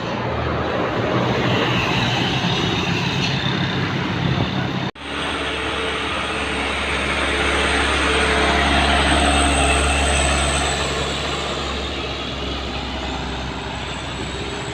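Heavy bus diesel engines passing close on a hill climb. About five seconds in the sound cuts off abruptly, then a deeper engine grows louder, peaks and fades as the bus goes by, with a thin high whine over it.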